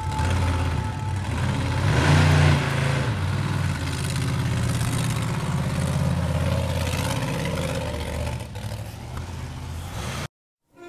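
Vehicle engine running steadily, with a deep rumble that swells briefly about two seconds in. The sound cuts off abruptly near the end.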